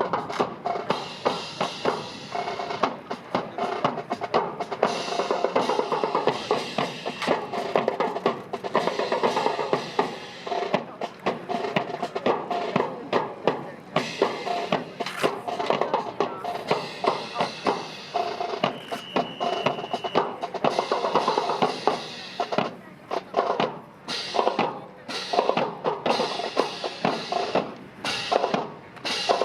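Drums playing with music: snare and bass drum beats and rolls.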